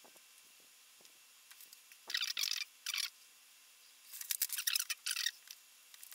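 Rustling handling noise in three bursts: one about two seconds in, a short one at about three seconds, and a longer one from about four to just past five seconds, with a few faint clicks between them.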